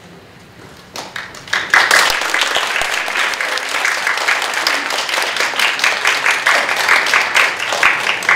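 Audience applauding: a few scattered claps about a second in, swelling into steady applause from many hands.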